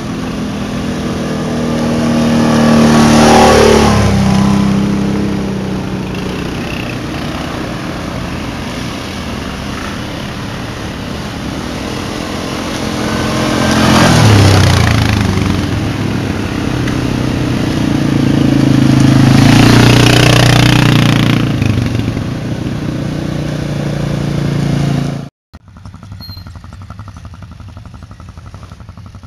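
ATV engines running past one after another, each growing louder as it approaches and dropping in pitch as it goes by, three times. The engine sound cuts off abruptly near the end, leaving a faint background.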